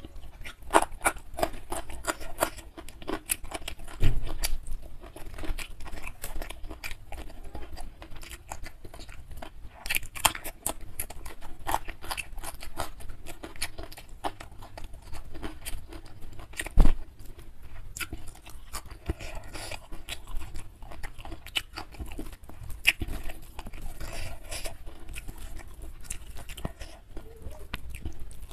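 Close-miked chewing and wet mouth smacks of someone eating nasi padang (rice with grilled fish and offal curry) by hand, with many sharp clicks. There are two dull thumps, one about four seconds in and a louder one a little past halfway.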